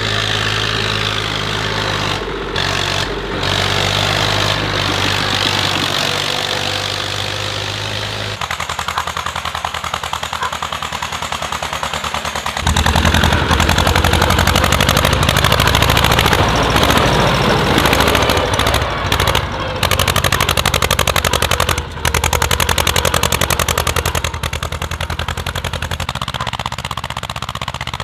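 Tractor engines running hard with a rapid, pulsing exhaust beat, as in a tractor hill climb under load. The sound changes about a third of the way in and grows louder and heavier about halfway through.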